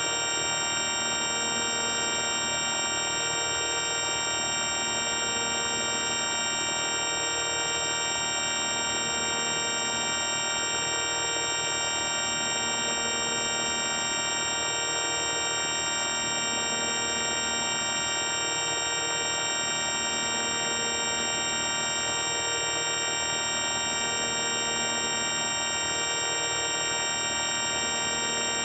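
Electronic buzzing drone, the '4ormulator V1' audio effect: a dense, unchanging chord of many steady tones. The lower tones pulse slowly, about every two and a half seconds.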